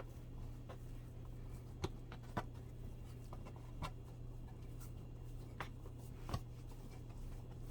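Kitchen handling sounds from biscuit-making: soft rubbing and scraping with about five sharp taps or knocks scattered through, over a steady low hum.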